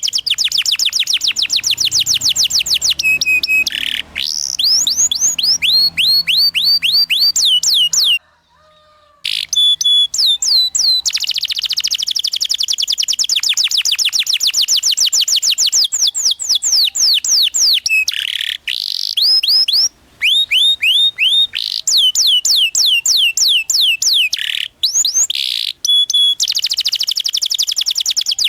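Domestic canary singing long, fast rolling trills of repeated falling notes, broken by a few short pauses and one silent gap of about a second near the middle.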